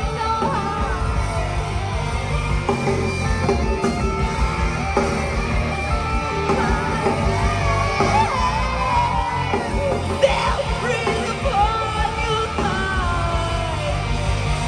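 Post-hardcore band playing live at full volume, with sung and yelled vocals over distorted guitars, bass and drums.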